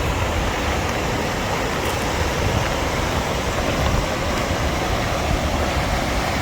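Steady rush of the Sheep River's whitewater, an even noise that holds level throughout.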